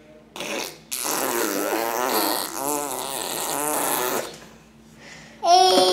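A baby making a long, raspy, straining noise with a wavering pitch, then a loud high-pitched squeal near the end.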